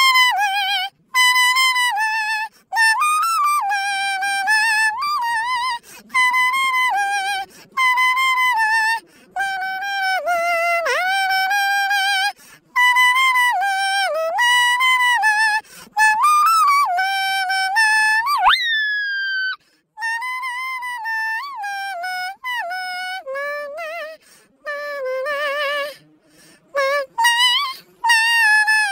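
A toy poodle's voice pitch-edited into a sung melody: held, wavering notes broken by short gaps, with a falling, howl-like note about 18 seconds in.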